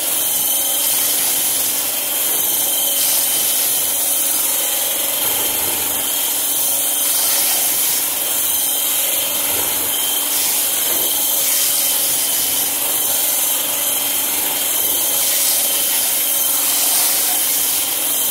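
Handheld immersion blender running steadily in a galvanized metal bucket of dry homemade laundry soap powder, a motor whine over a gritty churning hiss as essential oil is blended into the powder.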